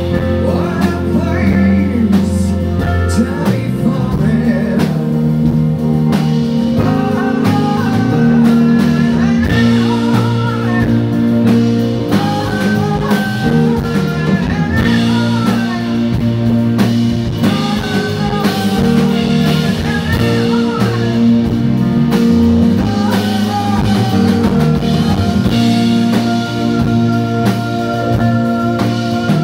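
Live rock band: a woman singing long, wavering notes into a microphone over guitar and a drum kit.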